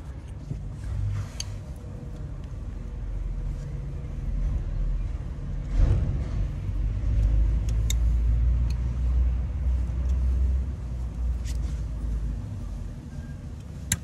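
A low rumble that builds over several seconds, holds, and then eases off. A few short sharp clicks come from hand tools working at the air conditioner's compressor.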